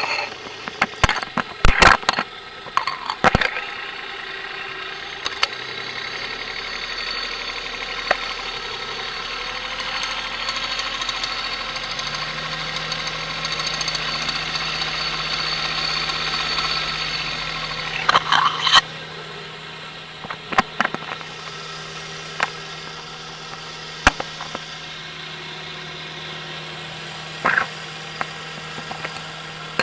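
1993 Geo Metro's three-cylinder engine running at idle, with scattered sharp knocks over the steady hum: the knocking noise that appeared after a Seafoam treatment.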